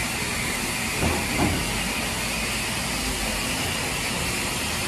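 BR Standard 9F steam locomotive standing at the platform with steam hissing steadily. Two brief low thumps come about a second in.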